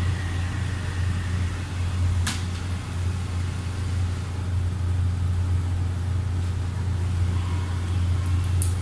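Steady low mechanical hum, with two brief sharp clicks, about two seconds in and again near the end.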